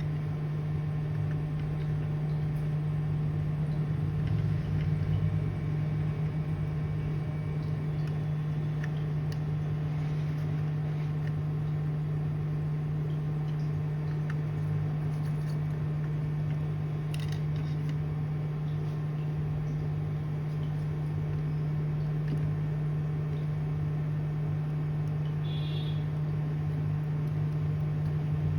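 Steady low electrical or mechanical hum, with a few faint light clicks.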